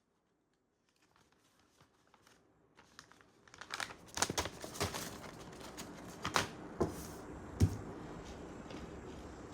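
Blind-bag packaging being crinkled and torn open by hand, starting faint and growing louder about a third of the way in, with several sharp crackles.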